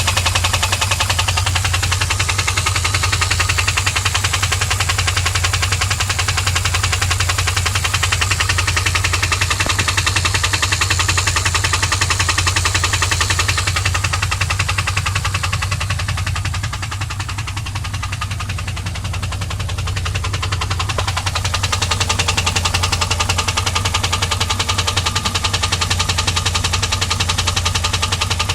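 2001 WS6's LS1 5.7 L V8 running steadily with a rapid, even tick/knock. The noise appeared after the engine ran dry of oil and was refilled. The level drops a little for a few seconds in the middle.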